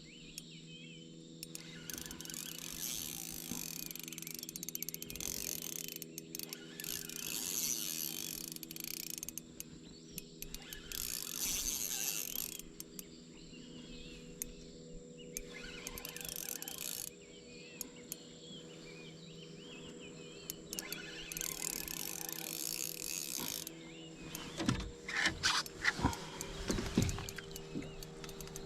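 Small spinning reel being wound in spells of a few seconds, its gears whirring, as a giant river prawn is reeled in, over a steady low hum. Several knocks and clicks near the end.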